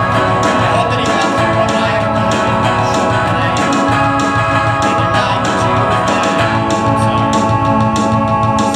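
Live instrumental passage of a pop-rock song: electric guitar strumming to a steady beat under sustained organ-like keyboard chords, with no singing.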